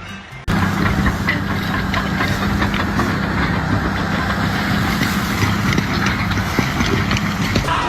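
A machine engine running steadily, a constant hum under a dense rattle, starting abruptly about half a second in and cutting off just before the end.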